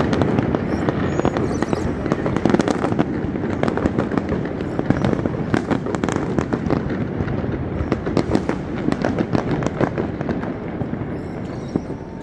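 Fireworks display going off in a dense, continuous run of overlapping bangs and crackles, easing off slightly near the end.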